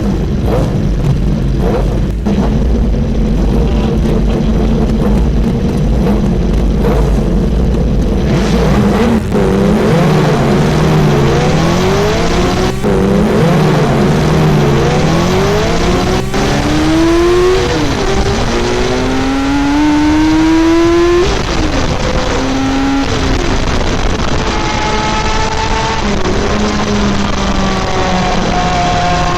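BMW S1000RR inline-four engine running: a steady drone at first, then revving up through the gears from about a third of the way in, the pitch climbing and dropping back at each upshift, before settling into steady cruising.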